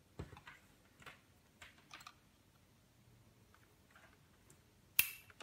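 Faint handling of network cables and plastic media-converter boxes on a desk: scattered light clicks and rustles, with one sharp click about five seconds in.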